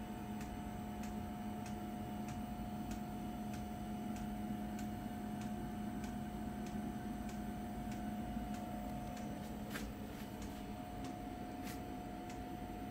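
Steady electrical hum from a power unit running on a test bench, holding one low and one higher tone, with a faint, even ticking about twice a second.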